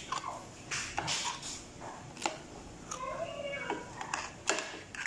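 Metal spoon clinking and scraping against a bowl as a fried pitha is turned in thick, wet batter, with a few sharp clinks. A brief pitched call about three seconds in.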